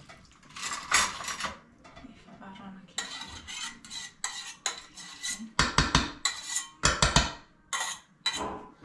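A small metal saucepan clanking and scraping against a large stainless-steel stockpot as liquid is scooped and poured into the pot of dolma. The clanks come irregularly, and the loudest strikes fall in the second half.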